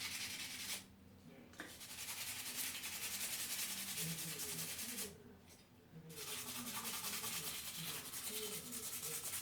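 Plastic Lego pieces being rubbed clean by hand: fast, continuous rubbing strokes that stop briefly twice, about a second in and again about five seconds in.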